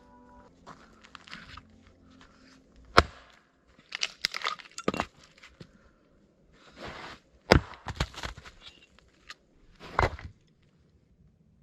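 A series of sharp cracks and knocks, the loudest about three seconds in and again about seven and a half seconds in, with short bursts of rustling in between.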